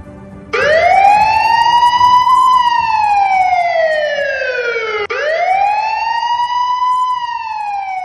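Siren sound effect played over the hall's speakers: two slow wails, each rising over about two seconds and then falling slowly back, the first starting about half a second in and the second about five seconds in.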